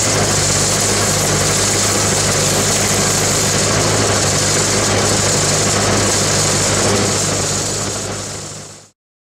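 Engine-driven welding machine running steadily, fading out near the end.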